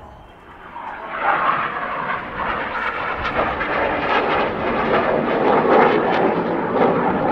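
Jet noise from BAE Hawk T1 display jets flying past, swelling about a second in and staying loud, with a rough, crackling edge.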